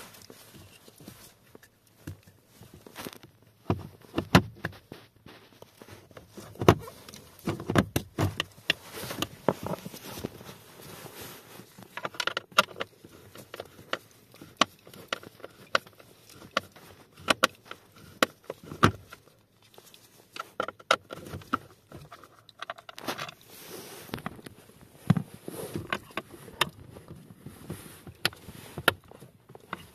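Irregular plastic clicks, knocks and rattles from hands working a car's heater blower motor under the dashboard: unplugging its electrical connector and working the motor and fan cage out of the blower housing.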